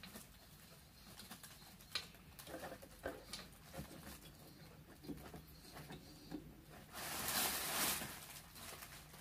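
Faint handling noise of a spider shock mount being screwed onto a boom-arm microphone stand: scattered small clicks and taps, then a louder rustle lasting about a second and a half, about seven seconds in.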